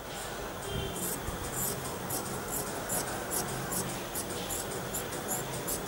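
Long-bladed fabric scissors cutting through cloth with repeated crisp snips, about three a second.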